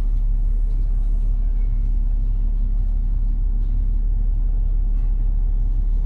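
Steady low droning rumble of a cruise ship's onboard machinery, with a faint constant hum above it.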